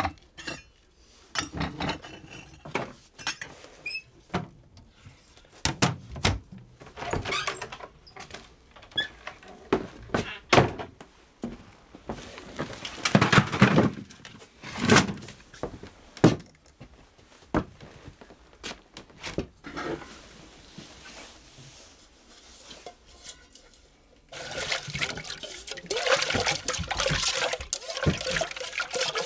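Kitchen handling sounds: a series of knocks and clunks of pots and utensils, then water starting to pour steadily about three-quarters of the way through.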